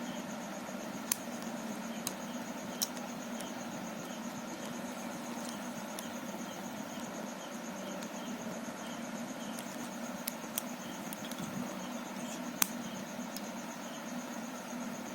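A few sharp, isolated clicks of Rubik's cube plastic pieces being handled and fitted, over a steady high-pitched whine and low hum.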